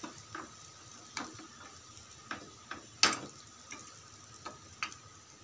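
Flat steel spatula scraping and tapping against a steel kadai as thick mutton pepper fry is stirred: irregular scrapes and clinks, the loudest about three seconds in, over a faint steady hiss.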